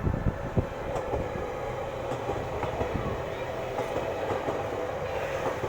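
Train running past on the Tohoku Main Line, a steady rumble of wheels on the rails with a ringing hum in the middle range. A few low thumps of wind buffeting the microphone at the very start.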